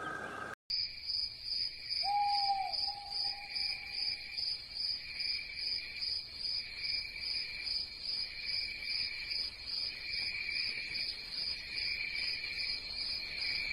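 Insect chirping steadily in even pulses, about two a second, like a cricket. One brief lower call comes about two seconds in.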